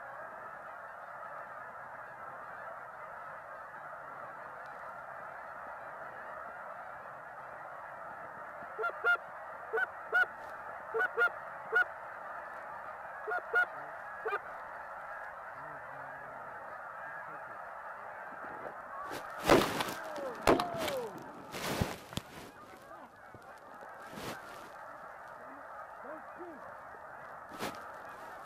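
A huge flock of geese calling overhead: a dense, steady din of honking, with single honks standing out now and then. About two-thirds of the way through comes a quick run of loud, sharp bangs, and after them the calling thins a little.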